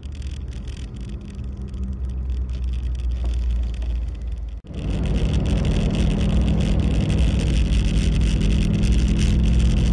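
A 2015 Toyota LandCruiser 79 series V8 turbo-diesel drives along a dirt road, its engine and tyre noise heard from inside the cabin as a steady low hum. The sound drops out for an instant about halfway through at an edit, and the drive is louder after it.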